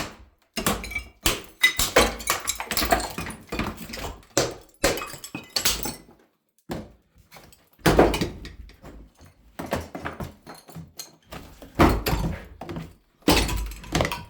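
Repeated hammer blows smashing wall tiles off a wall, the tiles cracking and breaking away. The strikes come in several quick bursts with short pauses between them.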